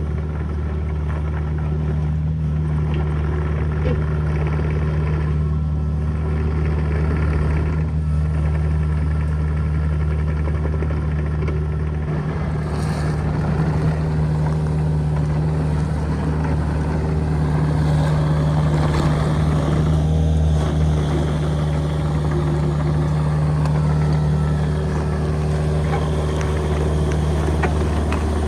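Engine of a compact earth-moving machine running steadily under load while backfilling a trench, a continuous low hum that swells a little now and then.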